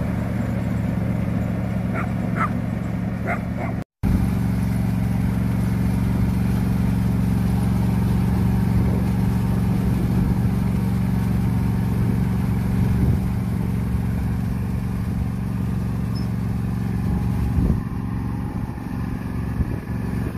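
John Deere D130 riding lawn mower's engine running at a steady pitch as the mower drives across the lawn. The sound drops out for a moment about four seconds in.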